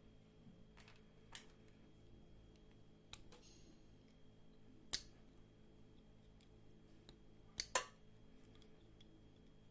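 Sparse sharp clicks and taps of small hard objects being handled, with a brief scrape about three seconds in, over a faint steady hum. The loudest tap comes about five seconds in, and a quick pair follows near the end.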